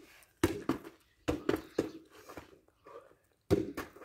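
A football being juggled on the feet and knees: several irregularly spaced thumps of the ball off the player's body, with his steps on gravelly dirt.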